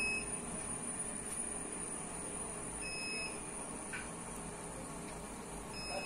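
Steady hiss of a gas burner under an aluminium idli steamer, with a short high electronic beep repeating about every three seconds.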